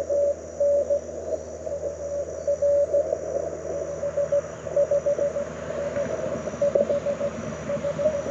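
Morse code (CW) from a Mountain Topper MTR4B transceiver heard through a small portable speaker: a mid-pitched beep keyed on and off in dits and dahs throughout. A low rumble builds in the second half.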